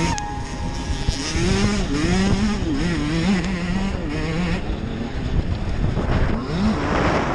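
Dirt bike engine revving, its pitch repeatedly rising and falling as the rider works the throttle. A rushing noise builds near the end.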